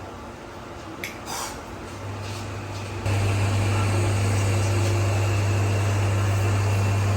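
A steady low machine hum starts about two seconds in and grows sharply louder about a second later, then holds. A brief short squeak comes about a second in.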